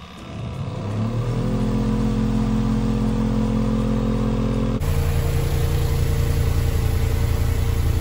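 Spin-dryer motor of a Giantex portable twin-tub washing machine spinning up over about a second and a half to a steady hum. About five seconds in the sound changes abruptly to a hum with a rapid pulsing beat.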